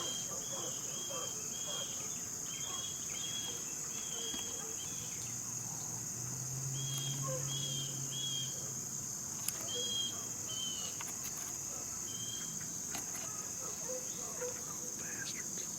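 Steady, high-pitched insect chorus, with runs of short repeated chirps over it and a faint low hum for a few seconds in the middle.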